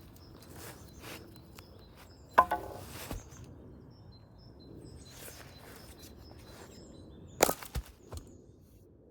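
Axe splitting firewood: two sharp blows about five seconds apart, each with a brief crackle and then a knock or two as the split pieces fall. Birds chirp faintly in the background.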